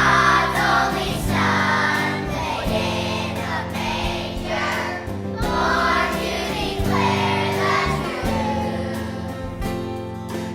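A choir singing a Christmas medley with instrumental accompaniment.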